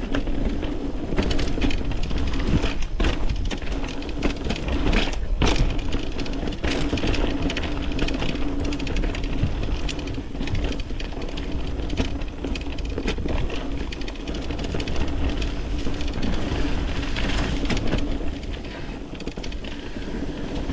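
Mountain bike riding down a dirt trail: a constant rumble of tyres and rattling bike, broken by many sharp knocks.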